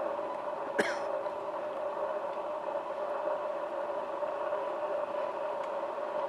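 A steady droning hum holding one pitch throughout, with a single sharp click about a second in.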